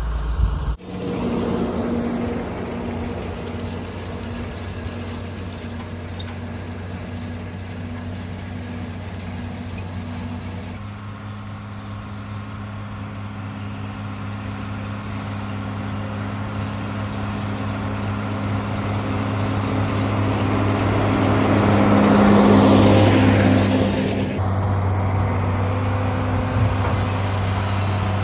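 A John Deere tractor's diesel engine runs steadily while pulling a John Deere round baler along the alfalfa windrows. The sound swells as the tractor comes close, about three quarters of the way through, then eases off.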